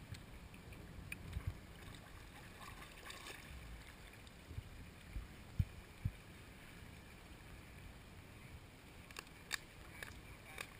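Kayak paddling on a slow, shallow river: quiet splashing and dripping of paddle strokes and water moving past the kayak, with a couple of soft low thumps about halfway through and a few small clicks near the end.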